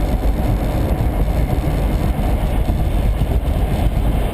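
Steady low rumble of a car driving at highway speed on a wet road, heard from inside the cabin: tyre and road noise with the engine underneath.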